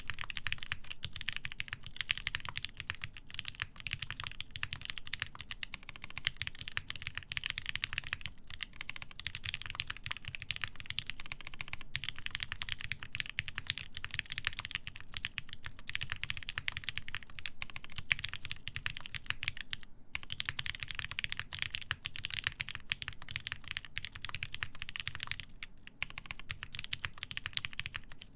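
Fast, continuous typing on a TGR Jane v2 mechanical keyboard with lubed linear Alpaca switches, a half polycarbonate plate and GMK keycaps: rapid key presses with a deep thock, broken by a few brief pauses.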